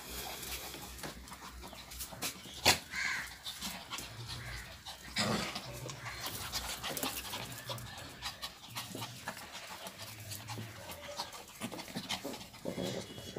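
Lhasa Apso puppies play-fighting: scuffling and scattered small clicks, with a short dog vocal sound about five seconds in. A sharp knock about two and a half seconds in is the loudest sound.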